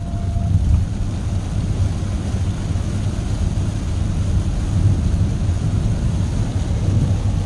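Car driving on a highway in a heavy downpour, heard from inside the cabin: a steady deep rumble of road and engine noise with a hiss of rain over it.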